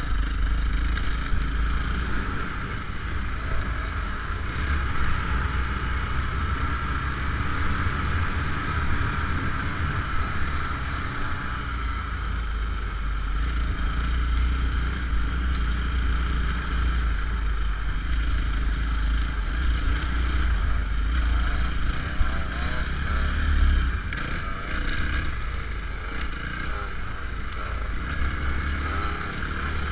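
Motocross bike engine running as the bike rides a dirt track, its pitch rising and falling with the throttle, under heavy wind rumble on the microphone.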